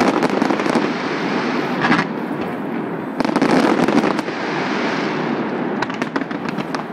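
Fireworks display with shells going off in rapid succession, bangs and crackling running together without a break, and a burst of fast crackles near the end.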